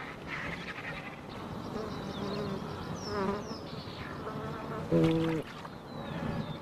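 Wild animal sounds: a steady buzz of insects with scattered bird chirps and a warbling trill, and a short, loud, low call about five seconds in.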